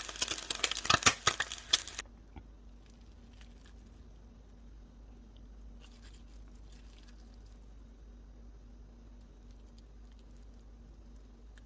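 Kimchi fried rice sizzling and crackling in a frying pan, cutting off abruptly about two seconds in. After that, only a faint steady hum with a few soft scattered clicks.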